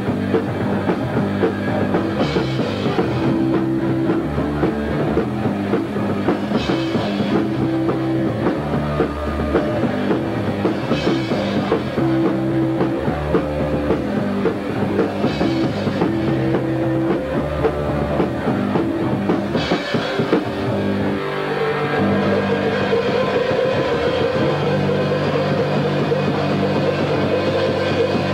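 Punk rock band playing live in the rehearsal room: electric guitar and drum kit, with a cymbal crash about every four seconds. The part changes about three-quarters of the way through.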